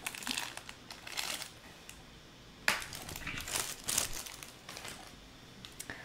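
Thin plastic wrapping crinkling as it is handled, in irregular bursts that come and go over a few seconds.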